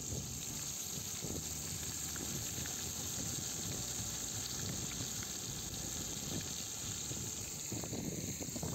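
Flour-coated whole fish frying in hot oil in a cast-iron kazan: a steady sizzle with dense crackling of the bubbling oil.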